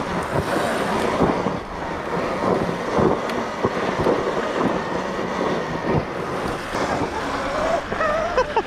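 Electric dirt bike ridden hard through loose sand, its knobby tyre churning and sliding, with heavy wind on the microphone. Near the end the motor's whine rises and falls as the throttle is worked.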